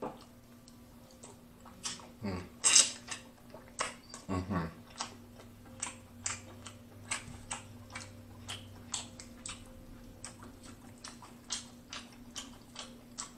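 Close-up eating sounds of king crab legs: a rapid, irregular run of sharp clicks and wet smacks from biting the meat, chewing and pulling the shell apart. A couple of short voiced murmurs come about 2 and 4.5 seconds in.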